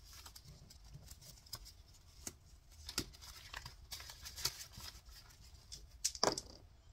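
Handling noise from a ring-binder cash organiser: vinyl zip pouches crinkling and a paper dollar bill rustling as it is slid into a pouch. There are scattered light clicks and rustles, a few of them sharper.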